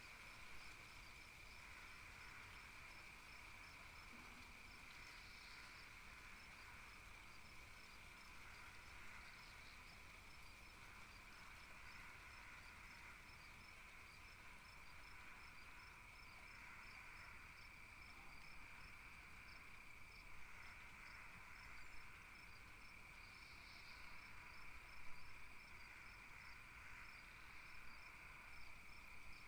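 Faint nature ambience of crickets: a steady insect trill with evenly spaced chirps, about three a second.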